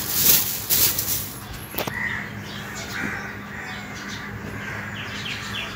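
Bedsheet and pillows rustling as a bed is made, loudest in the first two seconds, followed by a few short bird calls over a low steady hum.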